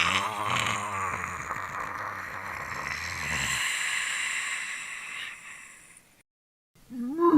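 Zombie growl sound effect: a long, rasping, breathy growl that fades away, then a brief silence, and the next, more pitched growl begins near the end.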